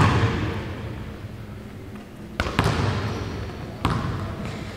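Basketball bouncing on a hardwood gym floor: a bounce at the start, two quick bounces about two and a half seconds in, and another near the end, each ringing on in the hall's echo.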